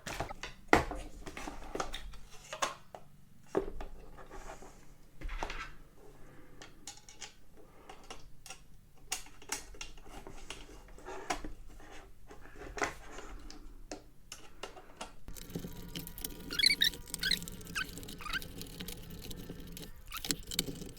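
Scattered clicks and taps of small metal parts and screws being handled while a cooler is fitted to a single-board computer. Near the end a low steady hum starts and a few short high squeaks are heard.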